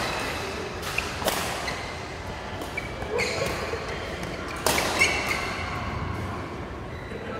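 Badminton rackets striking a shuttlecock several times in a doubles rally, each hit a sharp crack ringing in a large hall, with short squeaks of shoes on the court floor.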